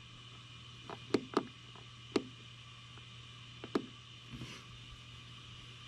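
About six short, sharp clicks at irregular intervals, from a finger pressing at the Jackery Explorer 880 power station's display button. A steady low hum runs underneath.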